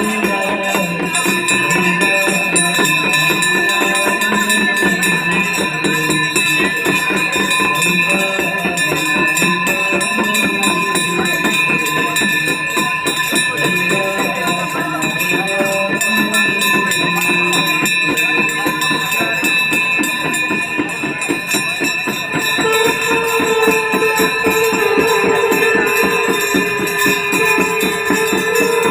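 Live Hindu aarti music with fast, continuous jingling percussion and steady ringing tones over a wavering sung melody. A long held tone joins about three quarters of the way through.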